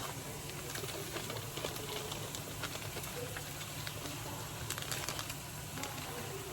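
Faint scattered light taps and rustles over a steady low room hum, as brown sugar is spread by hand over chopped yams.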